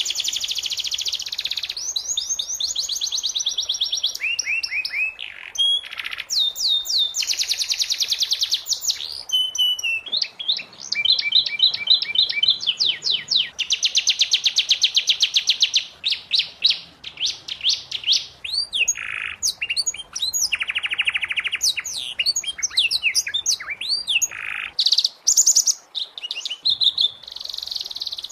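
Domestic canary singing continuously in high-pitched phrases of fast trills and rapid repeated-note rolls, with rising and falling whistled notes between them and brief pauses between phrases.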